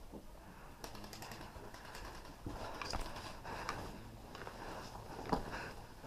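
Footsteps and gear rustling of a person moving slowly and quietly: scattered light clicks and scuffs, with a sharper knock about five seconds in.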